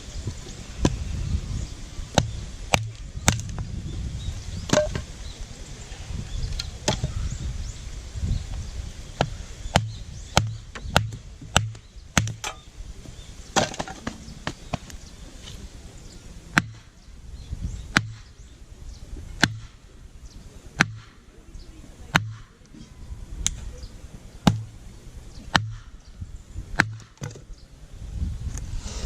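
Firewood being split by hand: a long series of sharp wooden knocks with a dull thud under each, roughly one a second, with a short break about halfway.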